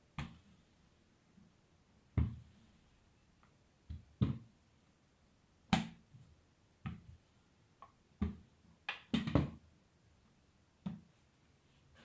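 Hands handling a rolled-out sheet of pastry dough on a floured kitchen worktop: about a dozen soft thumps and taps at irregular intervals, several bunched together near the end.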